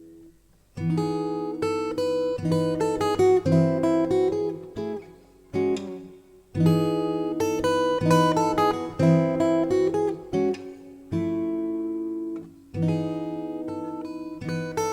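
Background music: a melody of plucked notes over chords, in phrases that start again about every six seconds.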